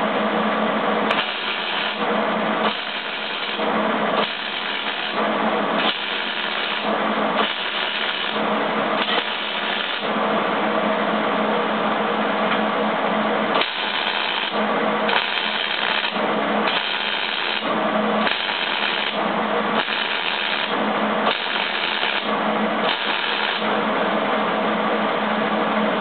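Millermatic 175 wire-feed (MIG) welder arc crackling on steel in short bursts about a second and a half apart, the pattern of stitch welding a steel leg to a quarter-inch steel plate. The run of bursts stops for a few seconds near the middle, then picks up again.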